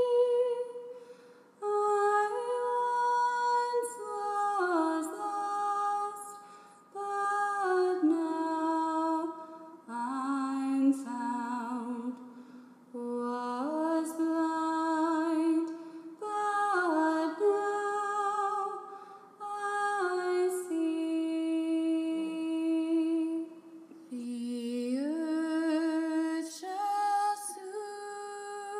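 A woman's wordless singing: a slow melody in phrases a few seconds long, the notes sliding into one another, with brief pauses between phrases.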